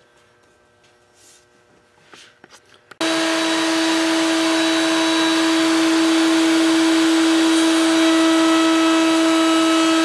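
Table-mounted wood router switched on and running with a steady whine, starting abruptly about three seconds in after a few faint handling clicks, and cut off suddenly at the end.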